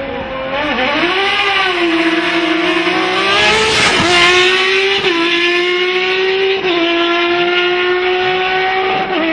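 A car engine running at high revs with a loud, nearly steady note that dips briefly a few times, near the start, about five and six and a half seconds in, and near the end.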